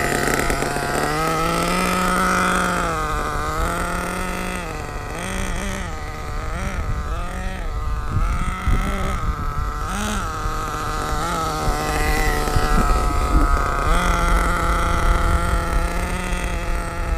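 HPI Savage X 4.6 Big Block nitro engine running on light throttle during break-in, its pitch rising and falling in short blips before holding steadier near the end.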